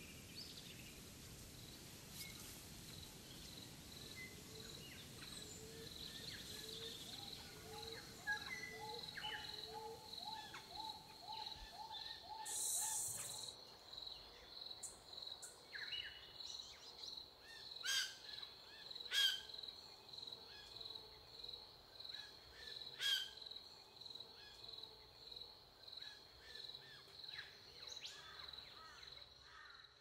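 Birds calling and chirping over a steady, evenly pulsing high insect-like chirp, with a run of repeated call notes about a quarter of the way in and a few sharper, louder calls in the second half.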